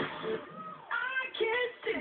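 Pop music playing from a radio, with a high singing voice that glides up and down in the second half.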